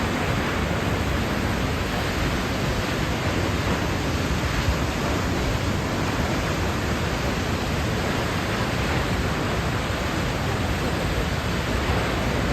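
Steady rush of water pouring over the Duden Waterfall, an even, unbroken roar.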